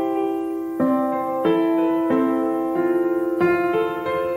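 Background piano music: calm, slow notes and chords, each ringing on as the next is struck, a new one roughly every two-thirds of a second.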